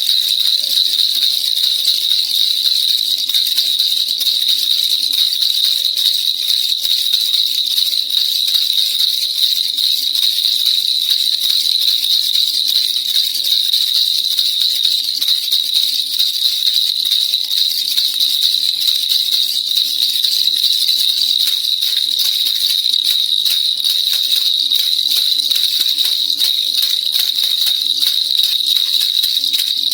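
Baby rattle (kilukilupai) shaken without a break: a fast, dense, steady jingling rattle with a bright high ring.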